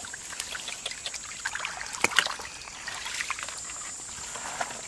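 Shallow muddy water trickling and splashing as a plastic basket is scooped through it and lifted out, with many small splashes and a louder one about two seconds in.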